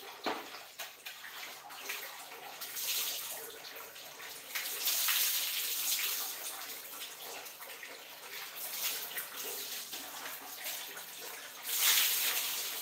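Water poured from a plastic dipper over a person bathing, splashing down onto a tiled floor in several louder pours: about three seconds in, a longer one about five seconds in, and another near the end. Between the pours there is a steady, softer sound of running water.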